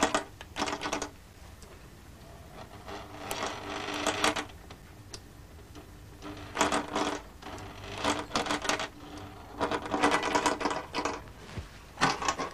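Sewing machine stitching in a series of short runs, a rapid clatter over a steady motor tone, stopping and starting every second or two.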